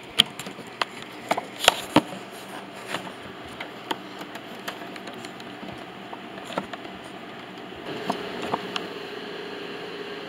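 Scattered clicks and knocks of handling, most of them in the first three seconds, over a steady room hiss. About eight seconds in, a steady machine hum comes on.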